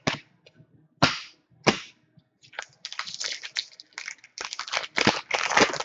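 A few sharp snaps as cards are set down, then the crackling, crinkling rustle of a foil trading-card pack being torn open by hand.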